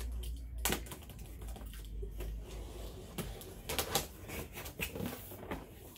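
Opening a cardboard box: slitting and peeling the tape seals, with scattered sharp clicks and short scrapes on the cardboard.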